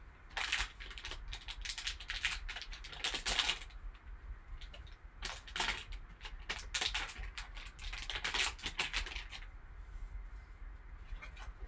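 Foil and plastic trading-card pack wrappers crinkling and rustling in irregular bursts as hands tear and pull the packs open.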